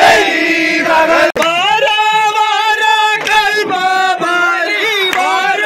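A group of men singing a vanchipattu, the Kerala snake-boat song, many voices chanting loudly together.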